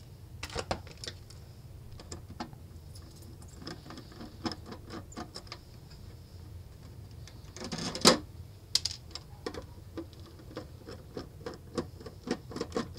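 Hands handling an XR2206 function generator kit in a clear acrylic case on a desk: scattered small plastic clicks and taps, with one louder scrape or knock about eight seconds in.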